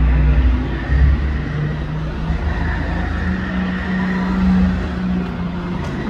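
Go-karts running around an indoor track: a continuous motor drone whose pitch rises and falls with the throttle, with a faint steady high whine.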